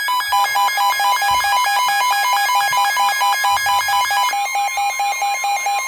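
Weather alert radio's alarm sounding: rapid, harsh electronic beeping, several beeps a second, signalling an incoming severe thunderstorm warning. A steady tone sits under the beeps near the end.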